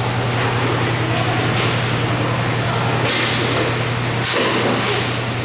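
Roller hockey play on an indoor rink: a dense rolling noise with a few sharp clacks of sticks or puck, about three seconds in and again near four and a half seconds, over a steady low hum.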